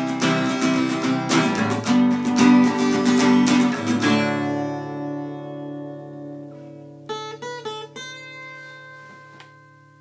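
Guitar strummed fast, stopping on a final chord about four seconds in that rings on and fades; a few single plucked notes sound around seven to eight seconds in.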